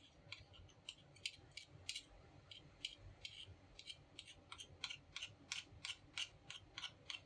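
Faint, quick clicks and ticks of small plastic parts being handled and fitted, some two or three a second and closer together in the second half.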